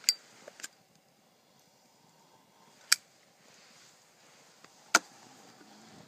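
Wood campfire popping: four sharp cracks at uneven intervals, the loudest near the start, about three seconds in and about five seconds in, with a low hiss between them.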